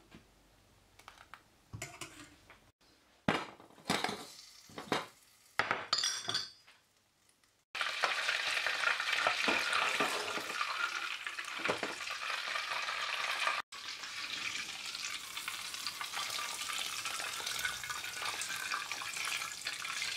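A few scattered scrapes and knocks of a metal spoon in a steel pot of thick soup. Then, from about eight seconds in, butter melting in a small pan gives a steady sizzle as it foams in the heat.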